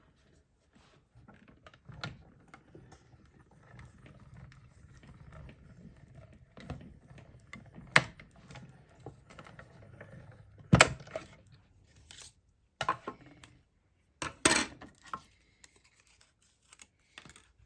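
Hand-cranked mini Stampin' Cut and Emboss die-cutting machine: the plate sandwich is cranked through with a low rumble for several seconds, then a few sharp clicks and clatters as the plates and die are handled and taken apart.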